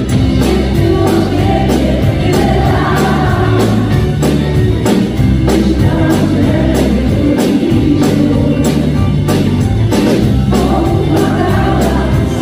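Live pop band playing: a woman sings lead with men's backing voices over a steady drum beat, bass guitar and keyboard.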